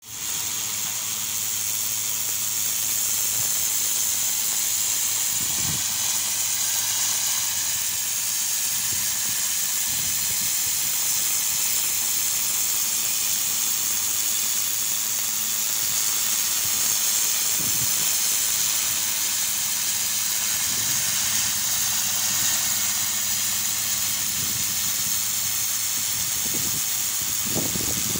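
Pressure washer jet spraying against a stone wall: a steady high hiss of water, with a steady low hum underneath.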